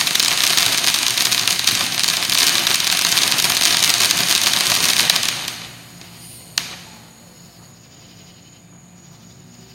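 Ground fountain firework spraying sparks with a loud, crackling hiss that burns for about five seconds and then dies away. A single sharp pop follows about a second later.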